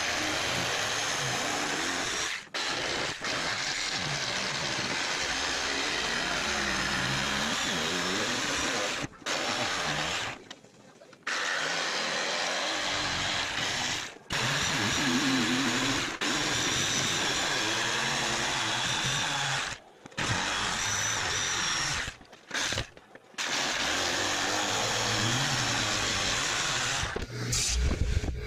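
Corded jigsaw running and cutting through thin plywood in several long runs, each broken off by an abrupt gap.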